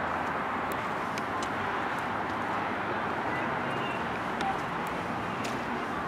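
Steady outdoor background noise, the hum of distant road traffic, with a few faint ticks.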